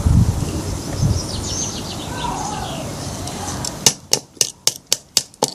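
Low rumbling wind and handling noise with a few faint bird chirps. About four seconds in it gives way to a quick, even run of sharp knocks, about four a second: a hammer tapping on the knife to drive it into the wood.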